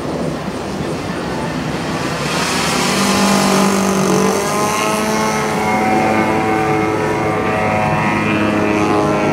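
Engine of a radio-control Extra 330 aerobatic model plane buzzing steadily in flight. It grows louder about two and a half seconds in as the plane passes close, and its pitch rises and then holds steady.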